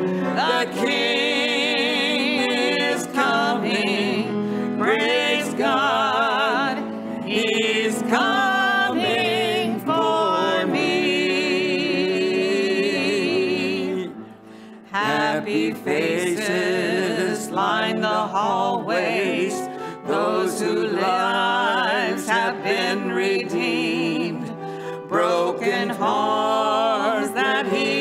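Voices singing a gospel hymn, the held notes carrying strong vibrato. There is a short break about halfway through, between the chorus and the next verse.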